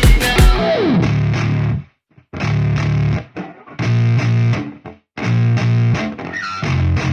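Background music: a drum beat that cuts off about half a second in, then distorted electric guitar playing short chugging riffs separated by brief silent gaps.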